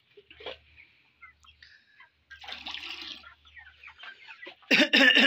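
A flock of 32-day-old broiler chickens clucking and moving about, with one loud call near the end.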